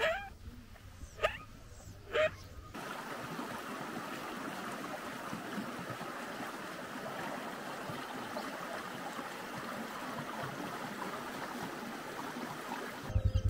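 Shallow river running over rocks and stones: a steady rushing and babbling that cuts in suddenly about three seconds in. Before it come a few brief animal calls. Just before the end, a rhythmic low pulsing starts.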